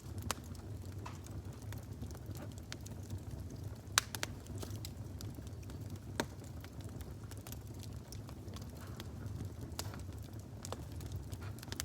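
A fire burning with a steady low rumble and scattered crackles, with a few sharper pops, the loudest about four seconds in.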